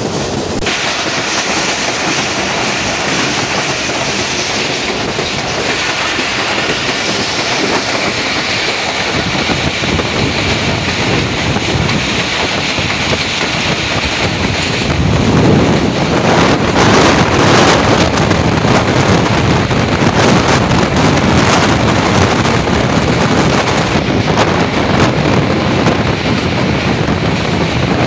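Passenger train running at speed, heard from an open coach door: the continuous rumble and rattle of the coach's wheels on the track, growing louder about halfway through.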